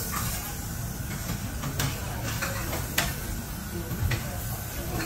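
Food sizzling on a hot teppanyaki steel griddle, with a few sharp clinks of a metal spatula striking and scraping the plate.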